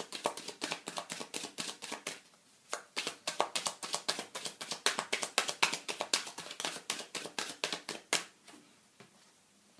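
Tarot cards being shuffled by hand: a fast run of papery card clicks, pausing briefly about two seconds in, then resuming and stopping about eight seconds in.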